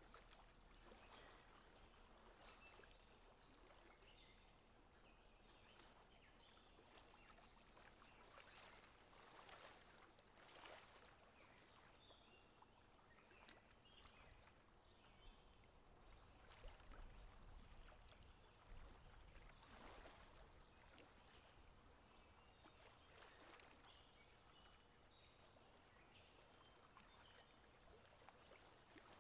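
Near silence: faint outdoor river ambience, a soft even hiss with scattered faint bird chirps.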